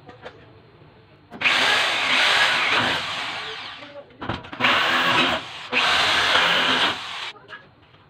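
Corded electric drill boring into galvanized steel wall-framing track. One long run of about two and a half seconds starts about a second and a half in and tails off, followed by two shorter bursts.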